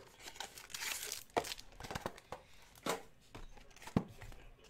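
Trading card packaging being handled and opened: wrappers crinkling and cardboard box flaps clicking and tapping now and then, with a longer stretch of crinkling near the start.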